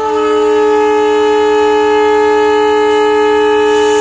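WDP4D diesel locomotive's air horn sounding one long, steady blast of several notes at once. This is the departure signal.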